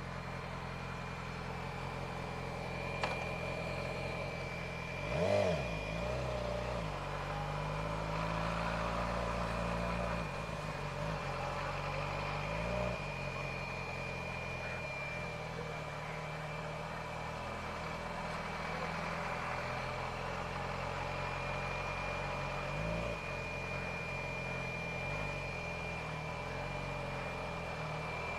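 Yamaha R6 inline-four engine running at low revs as the bike rolls slowly, with a short throttle blip about five seconds in and smaller ones later.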